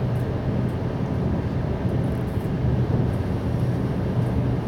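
Interior running noise of a Siemens Desiro HC (class 462) electric multiple unit under way: a steady rumble of wheels on rails with a low, even hum.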